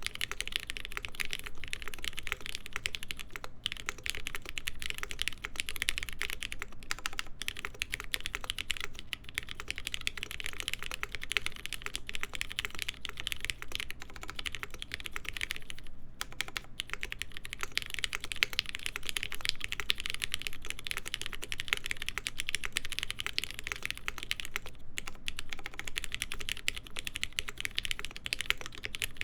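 Continuous fast typing on a Mode SixtyFive mechanical keyboard with lubed Cherry MX Black linear switches, stack mount and POM half plate, with JTK Hana keycaps: a dense run of soft keystroke clicks, broken by a few brief pauses.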